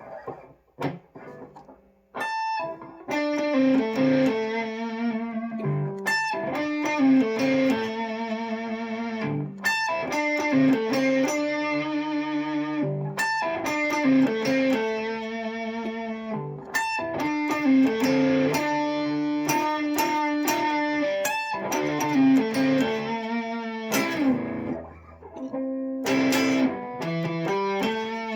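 Guitar playing ringing notes and chords in repeated phrases. It starts with a few soft plucked notes and gets louder about two seconds in.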